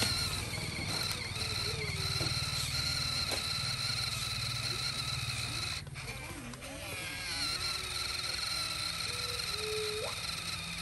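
Small electric motor and plastic gearbox of a toy RC tractor whining steadily under load while it struggles to climb a mound, cutting out briefly about six seconds in and then starting again. Short gliding squeaks come and go over it.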